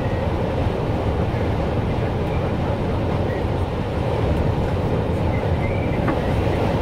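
Steady road and engine noise of a vehicle cruising at motorway speed, heard from inside the cabin.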